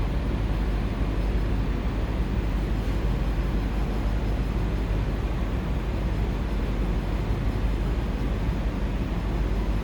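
A 2002 Toyota Sequoia's 4.7-litre V8 idling steadily, a low, even rumble with no revving. The owner is chasing a misfire and a flashing check engine light on this engine.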